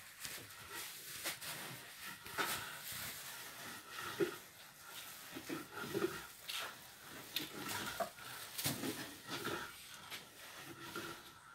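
Irregular soft scraping and knocking as cassava flour is stirred and toasted on the wide flat pan of a wood-fired flour oven.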